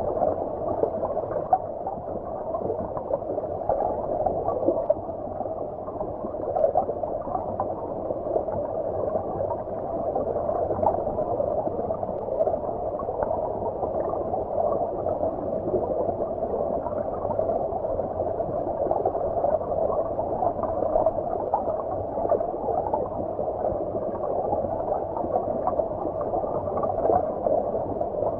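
Flowing stream water heard as if from underwater: a steady, muffled wash of moving water with no highs, and a continual flicker of small bubbling sounds.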